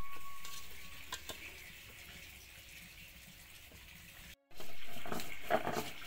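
Stone roller grinding spice paste on a flat grinding stone (shil-nora): gritty back-and-forth scraping strokes that start about four and a half seconds in, after a brief silence. Before that there is only faint background noise that fades away.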